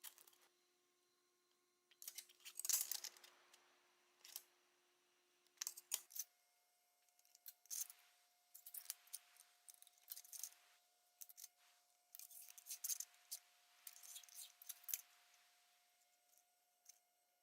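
Aluminium sheet being cut with hand snips: a string of short, irregular snipping crunches and clicks, over a faint steady hum.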